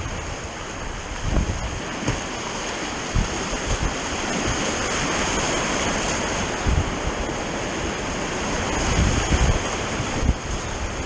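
River water rushing through rapids, a steady rush that swells a little mid-way, with a few short low thuds on the microphone.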